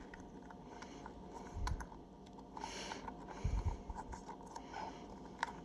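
Faint handling sounds of a metal beadlock ring being worked into a small rubber RC crawler tire: scattered light clicks and scrapes, with two soft thumps.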